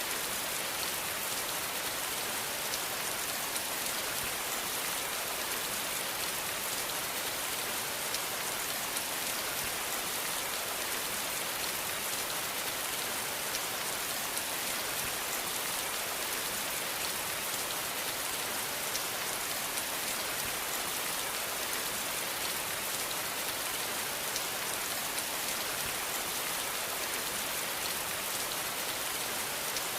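Steady rain falling, an even hiss with tiny scattered drop ticks and no thunder.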